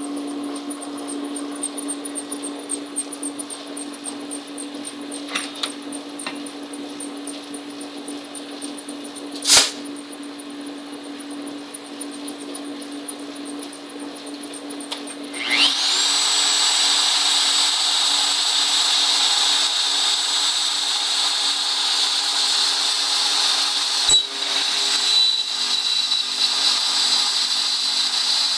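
Steady machine hum with faint fast ticking, then about halfway through a router motor, used as the spindle of a CNC gantry, switches on. Its whine rises quickly to full speed and it then runs steadily and loud, with a sharp click near the end.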